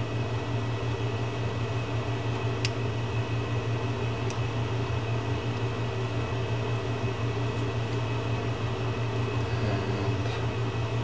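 A steady low machine hum, with two faint light clicks a few seconds in as small metal fishing-reel parts are handled.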